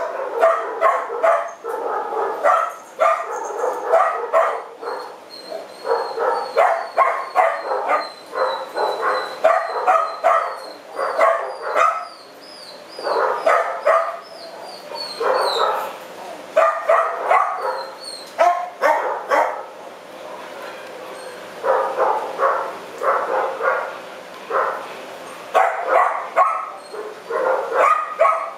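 Dogs barking repeatedly in clusters of short barks, with brief pauses between them. A faint high chirping runs in the background through the first half.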